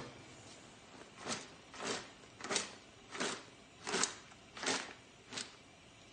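Cooked blue crabs rattling and sliding against each other and the sides of a large stockpot as it is shaken, seven shakes about two-thirds of a second apart.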